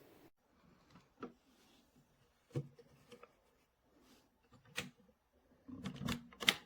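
A few light clicks and knocks, scattered and irregular, with a quick cluster of them near the end; a steady background noise stops just as it begins.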